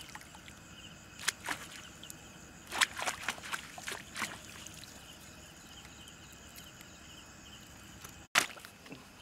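A fish spear jabbed into shallow water: several short splashes and sloshes, in bunches a little over a second in, around three and four seconds in, and once more near the end.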